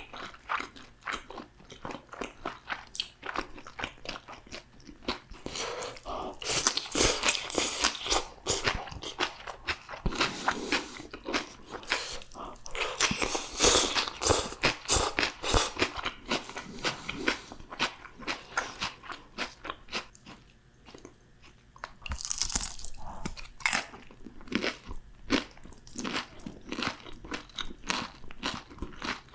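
Close-up crunching and chewing of crispy fried food: a steady run of crisp bites and crackly chews, with several louder stretches of dense crunching and a quieter spell of softer chewing about two-thirds through.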